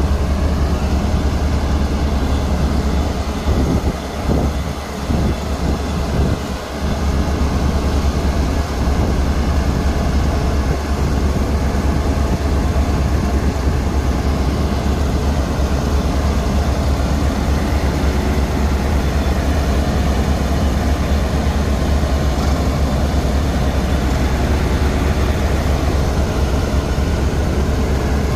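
Diesel engines of single-drum road rollers (soil compactors, an STA VV 900.D among them) running steadily under load, a heavy drone with a strong deep hum.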